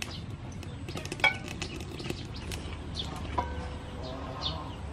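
Birds chirping outdoors, with short falling chirps repeating through the second half and a longer call about three and a half seconds in, over a steady low rumble. A single click comes about a second in.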